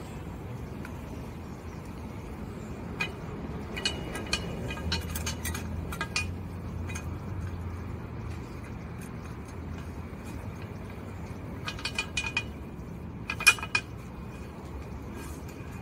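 Metal clinks and clanks in small clusters a few seconds apart, each with a short ring, over a steady low rumble of traffic.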